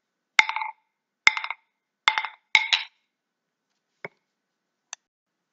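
A pair of hand-made wooden club-shaped moktak sticks knocked together five times, the last two in quick succession, each knock ringing briefly with a hollow wooden tone. Two faint taps follow later.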